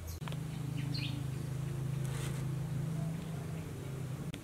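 A steady low buzzing hum that shifts in pitch a couple of times, with a few short bird chirps about a second in.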